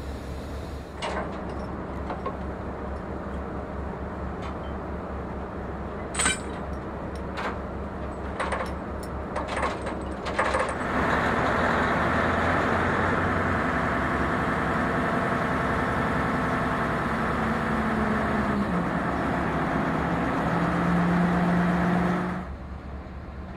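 A mobile crane's diesel engine runs steadily, with a few sharp metal clanks. About eleven seconds in it revs up and runs under load for roughly eleven seconds, its pitch dipping and rising again before it drops away suddenly.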